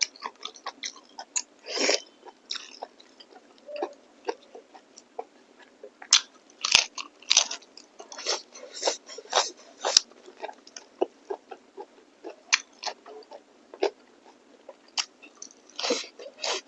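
A person chewing and biting food close to the microphone: irregular wet mouth smacks and clicks, with a couple of sharper clicks partway through.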